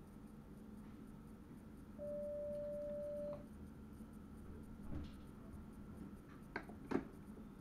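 A single steady electronic beep lasting about a second and a half, from the driver's cab equipment of a train, over the low hum of the running train. A soft knock and two sharp clicks follow near the end.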